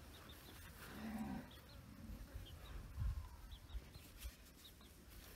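A brief, faint, low moo from an ox about a second in, over a quiet outdoor background with a few tiny high bird chirps.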